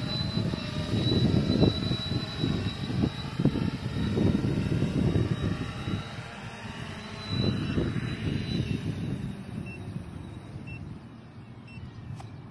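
Four-rotor DroneTech Poseidon Pro Black 2 drone's motors and three-blade propellers whining as it descends and touches down on return-to-home, the rotor tone fading over the second half. Short controller beeps about once a second signal that return-to-home is engaged, and gusts of wind buffet the microphone.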